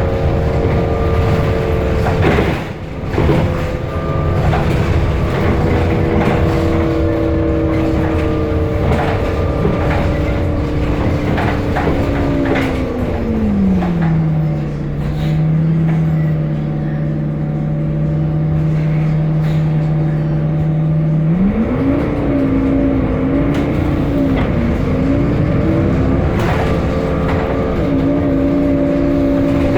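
City bus diesel engine, a DAF in a Temsa Avenue LF with a ZF Ecolife automatic gearbox, running with a steady drone. About halfway through the pitch sinks and holds low for several seconds, then climbs back with a wavering note before levelling out. Frequent short rattles and clicks run through it.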